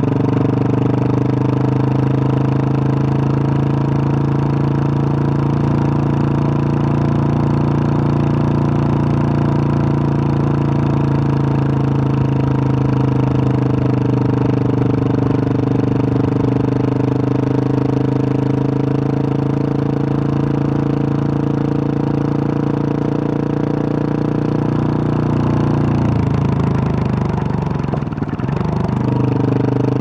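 Single-cylinder engine of a 2021 Husqvarna 701 Supermoto running through its Wings aftermarket exhaust at a steady cruise. Near the end the revs drop for a couple of seconds and then climb again.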